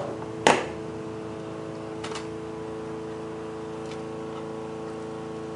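A sharp snap about half a second in as needle-nose pliers break a piece out of a brittle plastic CD case, then a few faint clicks of plastic and metal. A steady hum runs underneath.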